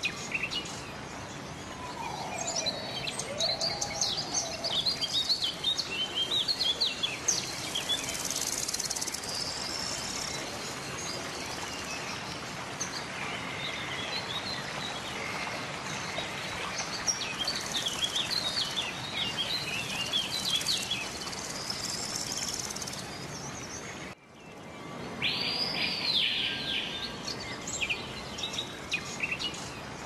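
Mixed chorus of small wild birds chirping and trilling over outdoor background noise, with a lower sliding call early in the chorus. The sound drops out abruptly about three-quarters through, then resumes with a single high arching whistle.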